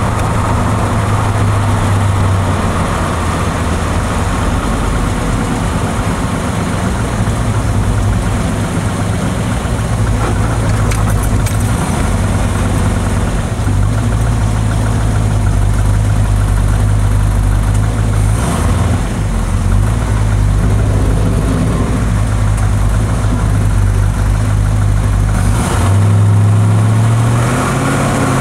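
Car engine running steadily at idle, its speed shifting briefly a few times. It is fed by a new Carter mechanical fuel pump that the owner suspects is faulty.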